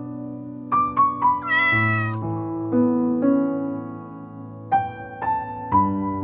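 Soft piano music with a single cat meow about a second and a half in.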